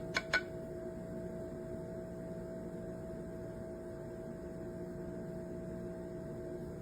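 A steady, even hum made of a few level tones, with two quick clicks in the first half second.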